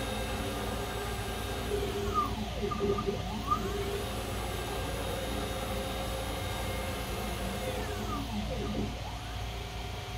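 A large CNC mill's NEMA 34 closed-loop stepper motors drive the axes on linear rails, giving a steady machine whine. The pitch sweeps up and down as the head speeds up and slows, about two seconds in and again near the end.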